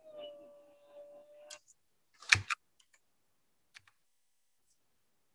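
A faint steady held tone for about the first second and a half, then a handful of sharp clicks at a computer. The loudest is a pair about two seconds in.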